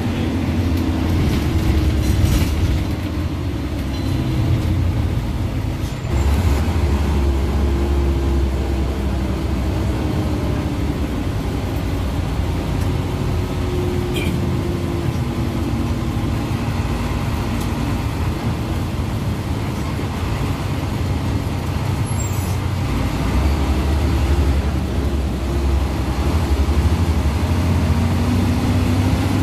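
Inter-city bus under way, heard from the passenger cabin: a steady deep road rumble with the engine tone slowly rising and falling as the bus speeds up and slows.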